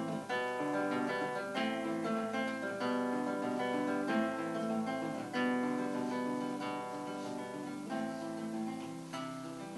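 Solo acoustic guitar playing an instrumental interlude of picked notes and chords, each note ringing on into the next.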